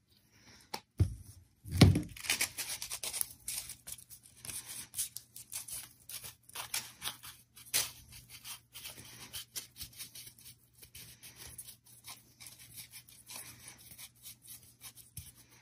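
Crepe paper crinkling and crackling irregularly as a strip is stretched and wound around a wire flower stem, with two knocks about one and two seconds in.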